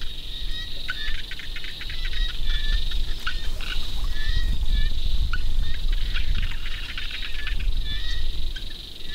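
Many small birds chirping in short, rapid, repeated calls over a steady high insect drone, with a low rumble underneath.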